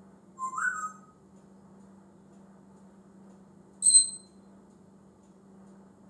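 African grey parrot giving two brief whistles about three seconds apart: first a lower one that slides up and settles, then a short, shrill, high whistle, the loudest sound.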